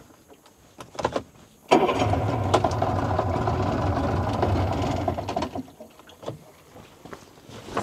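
A small boat motor is cranked: a few clicks, then it catches about two seconds in and runs steadily at a low idle for about four seconds before it is shut off.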